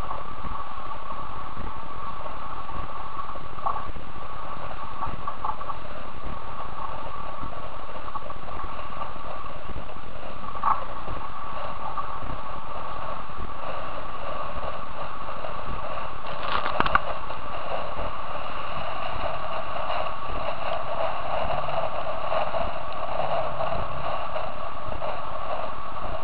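Steady rush of wind and water past a racing trimaran's hull, heard close up through a camera mounted on the bow, with a few sharp knocks, the loudest about 17 seconds in.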